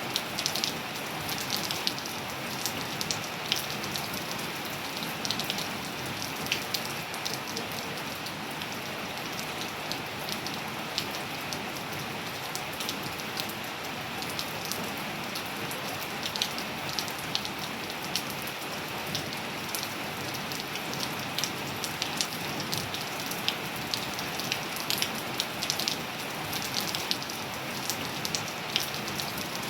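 Steady rain falling, with many sharp close drop ticks scattered over an even hiss.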